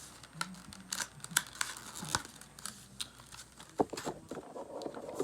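Cardboard and plastic packaging handled while a trading-card theme deck box is unpacked: scattered sharp clicks, crinkling and tearing.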